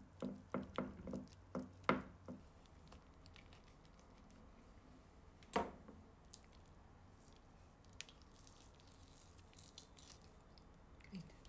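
A spoon working a creamy cheese mixture onto chicken in a ceramic baking dish gives a run of soft taps, and there is one sharper knock about five and a half seconds in. Later comes faint, sticky squishing as raw chicken breasts are handled on a wooden cutting board.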